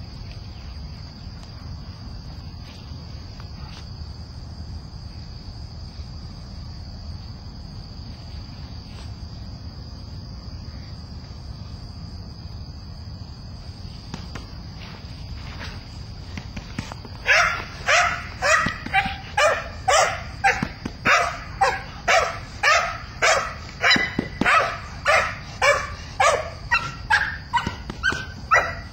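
A young Belgian Malinois barking in a fast, even series of about two barks a second, starting about seventeen seconds in. It is a young dog's first barking at a training decoy, a bark its trainer finds too friendly rather than aggressive. Before the barking there is only a steady high trill over a low rumble.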